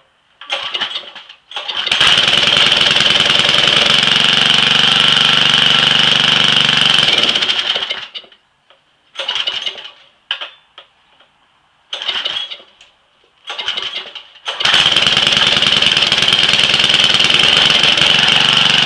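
Small pressure washer engine being pull-started cold on choke after months of sitting: it catches after a first pull and runs for about six seconds, dies, coughs briefly on several more pulls, then catches again and keeps running.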